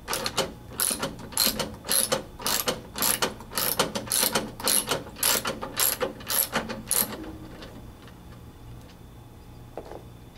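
Socket wrench ratcheting as a lawn mower wheel nut is loosened: short runs of sharp clicks from the pawl, about two strokes a second, stopping about seven seconds in.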